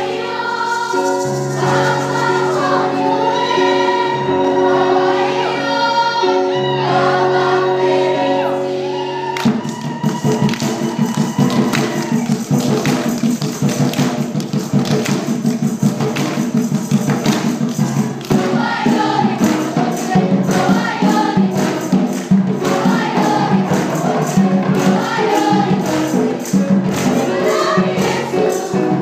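Children's choir singing with musical backing. About nine seconds in, the music changes to a driving percussive beat, and the voices come back in strongly over it later.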